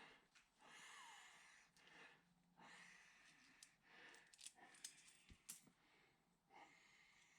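Near silence: room tone with a few faint soft swells of noise and several light clicks around the middle.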